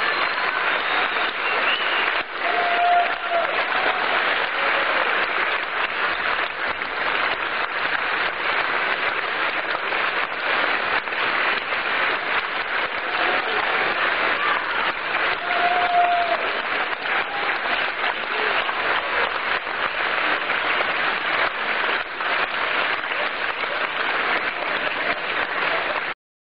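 Large concert audience applauding steadily, with a couple of brief calls standing out. The applause cuts off abruptly near the end.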